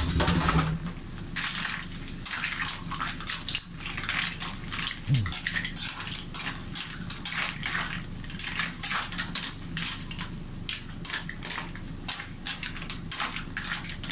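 Green mussel shells clattering against each other and a metal pot as they are stirred with a metal ladle: many quick, irregular clicks and clacks.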